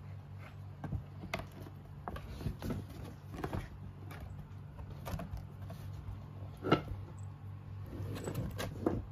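Kittens batting and pawing at a cardboard box: scattered light taps, scrapes and knocks on the cardboard, the sharpest knock about two-thirds of the way through, over a steady low hum.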